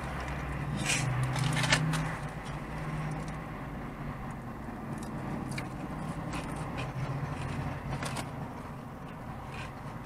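Fast-food packaging and a small plastic sauce cup crinkling and clicking now and then as battered fish and shrimp are eaten, over a low steady hum.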